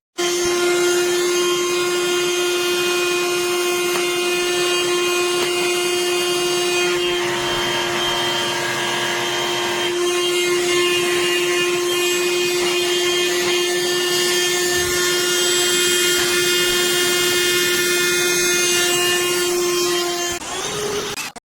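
BLACK+DECKER Dustbuster cordless handheld vacuum running with a steady, loud whine. Its tone shifts for a few seconds partway through, and it cuts off near the end.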